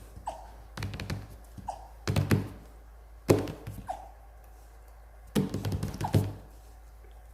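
Rottweiler puppy hiccupping, a short high hic with a slight downward slide about every two seconds. Several louder thumps and knocks come between the hics.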